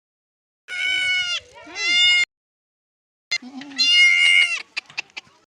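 A goat in labour bleating loudly: two high cries in quick succession, then a third after a short pause, followed by a few short clicks.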